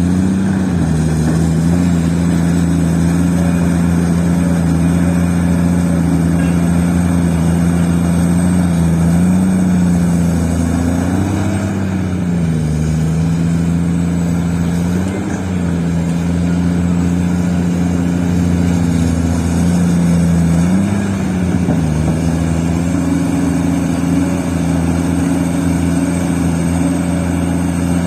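Heavy diesel engine of a mining excavator or dump truck running steadily, its speed rising briefly and settling back several times.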